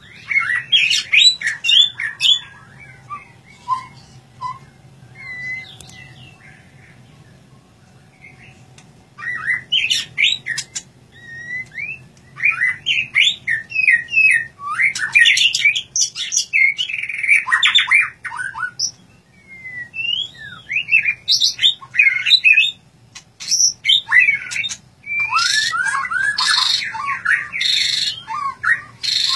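White-rumped shama (murai batu) singing in bouts of fast, varied whistled phrases with short pauses between them. Harsh, rasping notes are mixed in near the end.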